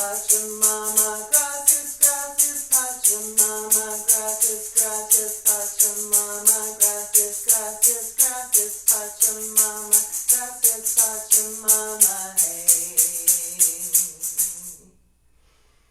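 A voice singing a repetitive chant over a hand rattle shaken in a steady beat, about three strokes a second. Near the end the voice holds a couple of lower notes, then voice and rattle stop together about 15 seconds in.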